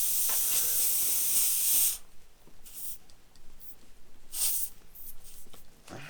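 Air hissing steadily out of a tire puncture, cutting off suddenly about two seconds in; a few short scrapes follow as the hole is worked on.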